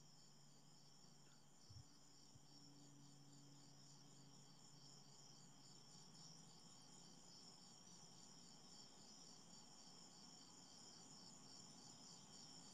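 Near silence with faint, steady high-pitched insect chirping that pulses a few times a second. There is a soft tap about two seconds in.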